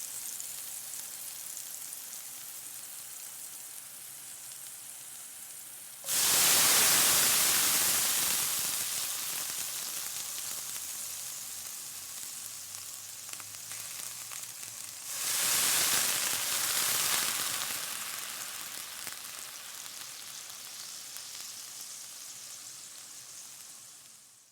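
Water sizzling rapidly on a hot pan: a steady crackling hiss that flares up suddenly twice, about six and fifteen seconds in, each flare dying back down over several seconds, then fading out at the end.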